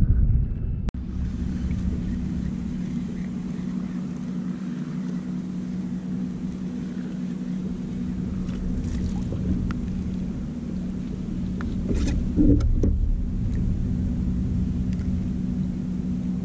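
Boat motor running steadily: an even low hum with a rumble under it. About twelve seconds in there is a brief clatter of handling noise.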